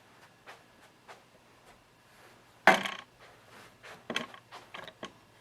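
Handling noise: scattered light clicks and knocks as things are moved about near the microphone, with one louder clunk about two and a half seconds in and a quick run of smaller clicks near the end.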